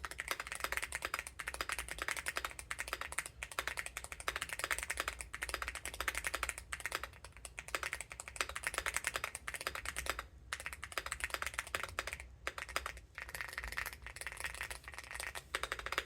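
Fast typing on a hall effect (magnetic-switch) keyboard: a rapid, dense run of key clicks broken by a few short pauses.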